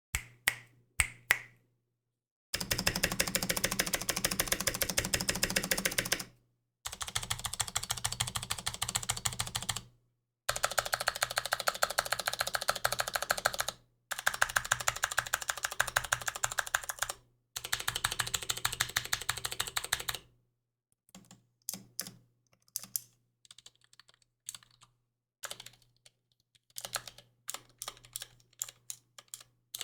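Varmilo VA87M mechanical keyboard with clicky Cherry MX Blue switches, its stabilized large keys being typed on. A few single strikes come first, then five runs of rapid repeated keystrokes of three to four seconds each, then slower, separate key presses from about two-thirds of the way in.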